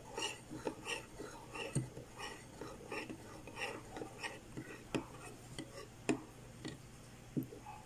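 Metal spoon stirring a soy sauce, calamansi and black pepper marinade in a ceramic bowl: the liquid swishes and the spoon scrapes and clinks against the bowl in a quick, even rhythm of about three strokes a second, with a few sharper clinks.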